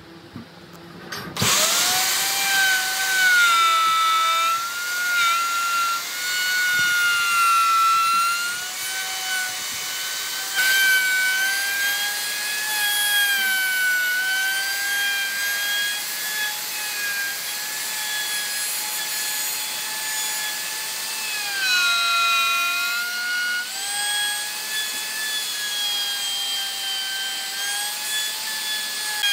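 An electric power tool starting up about a second and a half in and running with a steady high whine. Its pitch sags and recovers now and then as it is worked against the wood.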